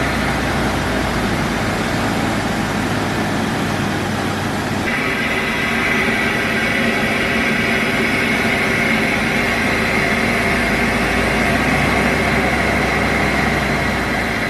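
Steady vehicle-like rumble and hiss, with a higher band of noise coming in about five seconds in.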